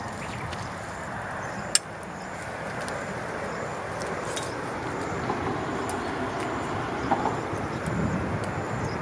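Small wood fire crackling under a pot, with a few scattered clicks and one sharp pop about two seconds in, over a steady outdoor hiss.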